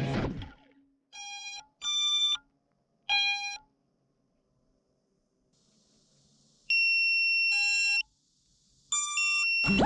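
Electronic beeps of differing pitch: three short beeps in the first few seconds, then a longer held tone a little past the middle with a brief overlapping beep, and a final quick run of beeps near the end.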